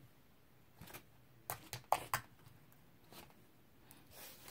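Faint handling noises from homemade white glue slime being held and shown: a few scattered short clicks and soft sticky pops.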